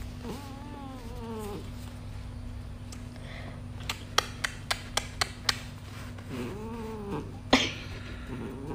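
A British Shorthair cat meowing a few short rising-and-falling calls, at the start and again a little past the middle. Between the calls comes a quick run of about six sharp smacking clicks, followed by one louder click.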